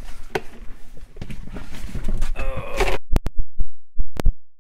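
Rustling and knocks of someone climbing into a car's driver's seat, the camera handled close to the door and seat, ending in a run of sharp clicks in the last second and a half.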